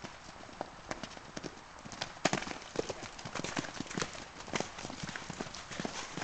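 Hoofbeats of several horses galloping over dirt, a quick irregular patter of thuds that grows louder and denser about two seconds in as the herd draws near.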